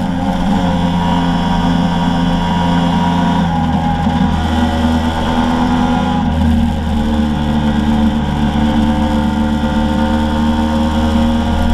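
Motor scooter engine running steadily under way, heard from low on the front of the scooter together with wind and road noise. Its note drops about three and a half seconds in and shifts again around six seconds in.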